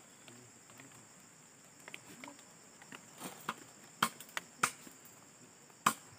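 A steady high insect drone in the scrub, with scattered sharp snaps and rustles of footsteps pushing through the undergrowth, coming more often and louder after about three seconds in.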